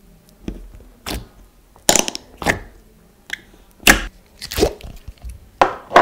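Thick, glossy slime being poked and pressed with fingers in a plastic tub, giving about ten sharp, irregularly spaced pops and clicks.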